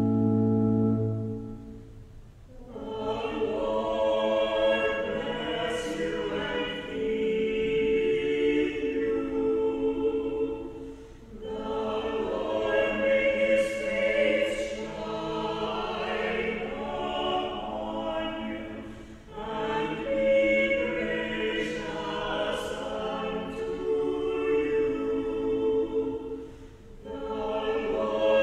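A held organ chord, then a small church choir of four voices singing a closing sung response in long phrases with short breaks between them.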